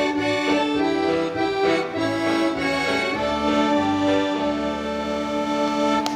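Instrumental music with held chords over a stepping bass line, stopping suddenly near the end.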